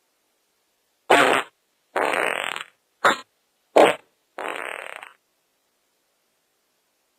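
Five separate fart sounds in quick succession, some short and sharp, others drawn out for most of a second, with dead silence between them.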